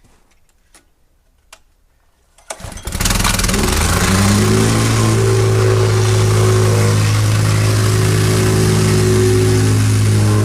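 Small petrol engine of a whacker plate (plate compactor) starting up about two and a half seconds in, revving up over about a second and then running at a steady speed.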